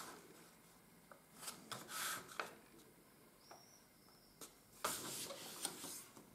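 Faint rustling and rubbing of coated paper being folded and its crease pressed flat by hand, in a few short strokes, then a longer stretch of rubbing near the end.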